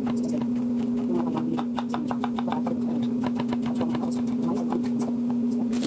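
Kitchen knife slicing a green bell pepper into strips on a wooden cutting board: quick, repeated taps of the blade on the board, several a second, over a steady low hum.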